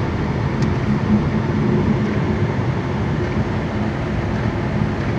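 Steady interior noise of a BMW 750i cruising on the freeway at just under 80 mph: a low engine drone under road and wind noise.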